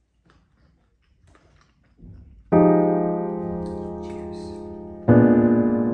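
Quiet at first with a few faint small ticks, then slow piano music begins about two and a half seconds in: sustained chords, each struck and left to fade, with a new chord about every two and a half seconds.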